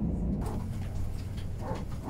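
A steady low rumble, then from about half a second in the noise of a plane's cabin as passengers get up to leave: indistinct voices and scattered clicks and knocks of overhead bins and bags, over a low hum.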